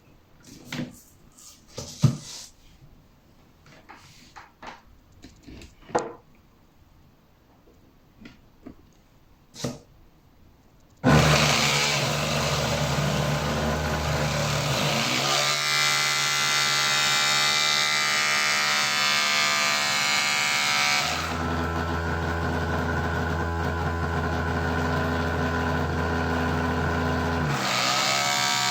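Scattered clicks and knocks. About eleven seconds in, a washing machine drain pump starts suddenly with a loud, steady electric hum, and its tone changes a few times as it runs.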